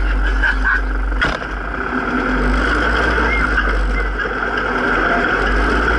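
Zetor 7340 tractor's four-cylinder diesel engine running while driving, heard from inside the cab as a steady drone. A sharp clack comes about a second in, and the engine sound briefly dips after it.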